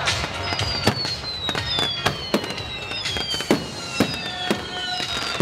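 Aerial fireworks: about eight sharp bangs from shells bursting, coming every half second to a second. Over them, several long whistles slide slowly down in pitch together.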